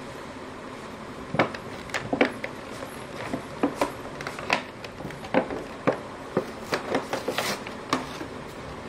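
Hands handling and prying at a cardboard retail box with a clear plastic window: irregular crackles and taps of card and plastic, starting about a second and a half in and going on until near the end.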